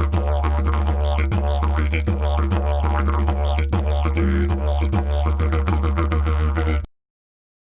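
Music built on a steady low drone, with rhythmic pulsing overtones sweeping above it. It cuts off suddenly near the end, leaving silence.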